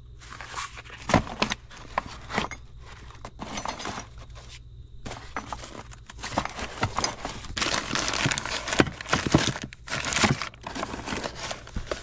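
Parts being rummaged through on a shop shelf: paper and plastic packaging rustling and crinkling, with small knocks and clicks as items are moved, busier in the second half.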